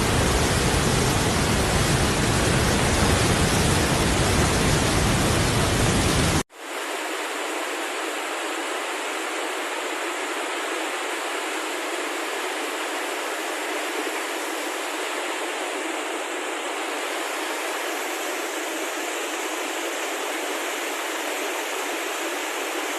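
Steady rush of floodwater, loud and full at first. About six seconds in it cuts abruptly to another steady rush of water that is thinner, without the deep rumble.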